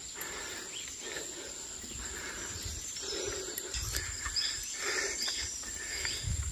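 Mountain bike rolling along a rough concrete lane: tyre and drivetrain noise with uneven low rumbles of wind on the microphone.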